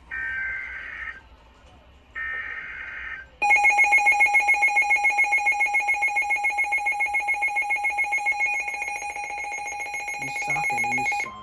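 Emergency Alert System SAME header data bursts from NOAA Weather Radio: two short buzzy digital squawks about a second apart. They are followed by a loud pulsing alert tone at about five beeps a second, lasting about eight seconds, which announces a flash flood warning.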